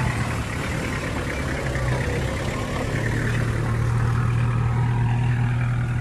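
Minivan engine running steadily at low speed as the van drives slowly along a dirt track.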